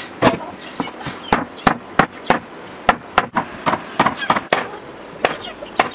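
Meat cleaver chopping through raw beef ribs on a wooden chopping block: a run of sharp, irregular strikes, about two to three a second.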